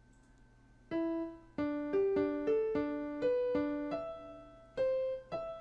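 Electronic keyboard in a piano voice, picking out a melody one note at a time. It starts about a second in with about a dozen notes, alternating one low note with higher ones, in the pattern ré, sol, ré, lá, ré, si.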